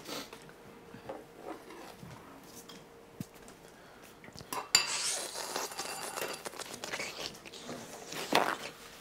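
Dishes and cutlery clattering at a kitchen counter and sink: light scattered handling at first, then a sharp clink just under five seconds in, a few seconds of busier, noisier clatter, and a louder knock near the end.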